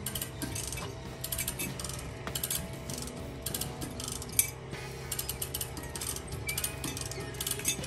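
Ratcheting hand hoist clicking in quick runs as it is worked to lift a generator off the ground on a strap, with one louder clack about halfway through.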